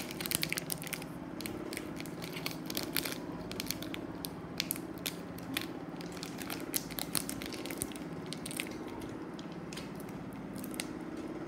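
A foil booster-pack wrapper crinkling and crackling as it is picked at and torn open by hand, in many small irregular crackles. A low steady hum lies underneath.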